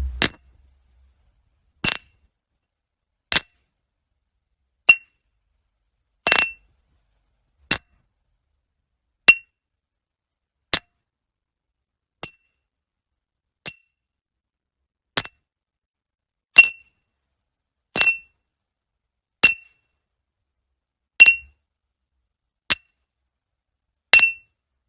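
A glass tapped at an even pace, about once every second and a half, each tap a short, bright clink with a brief ring; some taps are softer than others.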